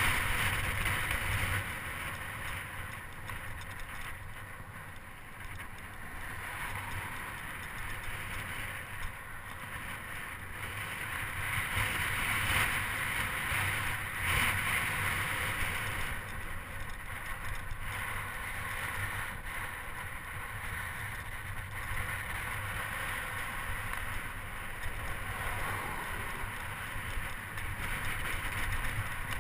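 Steady rushing noise of riding a bicycle on rough, cracked asphalt: wind over the microphone and tyres rolling, swelling and easing every few seconds.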